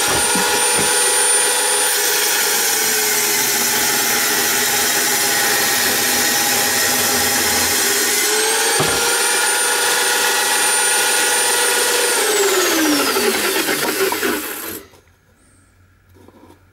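Electric drill spinning a circular saw blade in a homemade table saw and cutting through laminated chipboard, a steady motor whine that sits lower in pitch while the blade is in the cut. About 13 seconds in the motor is switched off and winds down, its whine falling in pitch until it stops about two seconds later.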